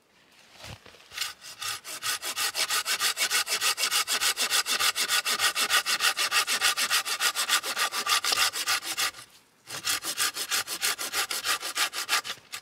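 Small hand saw cutting across a thin dead log, in quick, even back-and-forth strokes. The strokes pause briefly about three-quarters of the way through, then resume and stop just before the end.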